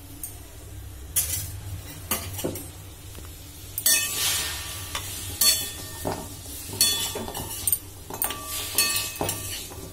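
A spatula scraping and knocking against a metal kadai as lumps of jaggery are stirred in the hot pan, some knocks ringing briefly. A light sizzle runs under it as the jaggery begins to melt.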